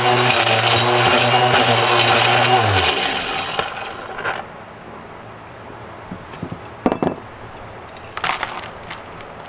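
Mighty Mill ore crusher running with a steady hum while pieces of RJ45 connectors rattle and clatter inside it, chewing through them easily. About three seconds in the motor is switched off and spins down, the clatter dying away over the next second or so; a couple of light knocks follow later.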